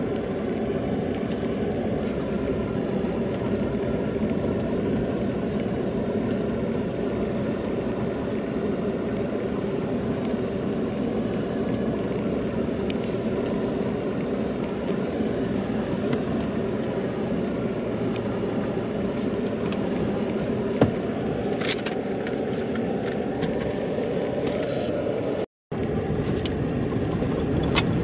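Steady rumble of a vehicle driven on a dirt road, heard from inside the cab: engine and tyre noise. A single sharp click comes about 21 seconds in, and the sound cuts out for a moment near the end.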